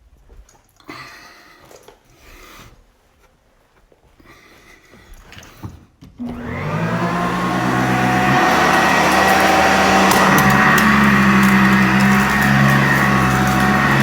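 A few quiet knocks and handling sounds, then a Sanitaire upright vacuum cleaner is switched on about six seconds in: its motor spins up, rising in pitch over a second or two, and settles into a loud, steady run.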